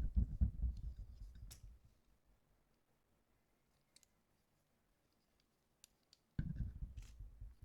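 Microphone handling noise: low rumbling bumps and rubbing for about two seconds, a few small sharp clicks, then another stretch of rumbling bumps near the end.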